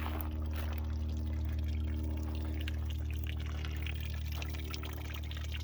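Soda fizzing and trickling out of bullet-holed cans, over a steady low hum.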